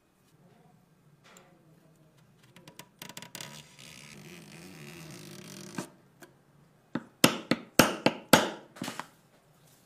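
A knife blade drawn through thick fabric with a steady rasping for about three seconds, then about half a dozen sharp hammer blows in quick succession driving a four-prong stitching chisel into the fabric to punch stitching holes.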